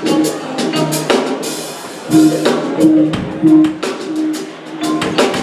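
Live band playing, with a drum kit hitting steadily over a sustained low melodic line.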